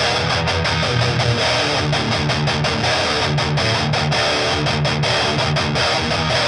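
Electric guitar riffing steadily through a Line 6 Helix amp modeler loaded with a 2x12 cabinet impulse response, heard as amp-in-the-room sound from an Electro-Voice monitor speaker.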